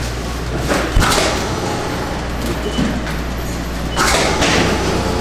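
Double-chamber vacuum packing machine at work: a steady low hum from its running pump, a sharp thud about a second in as the lid comes down, and a loud burst of hissing noise about four seconds in.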